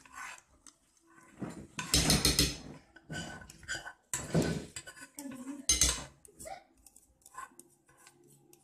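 A utensil stirring and scraping thick chocolate cream in a glass mixing bowl, knocking and clinking against the glass in irregular bursts; the loudest clatter comes about 2 seconds in, with others near the middle.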